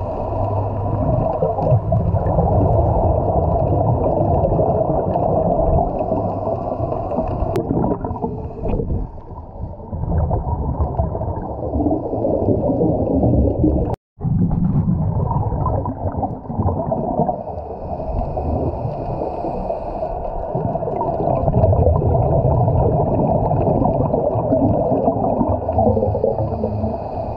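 Steady low underwater rumble and gurgle picked up by an action camera in its waterproof housing, dropping out for a moment about halfway through.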